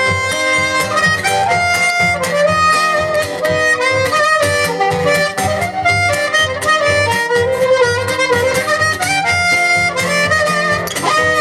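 Live band playing an instrumental break between sung verses: a sustained lead melody over a steady beat.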